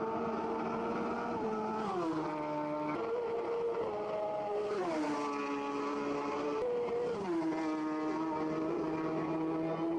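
Racing motorcycle engine at high revs, its pitch sliding down and jumping back up three times.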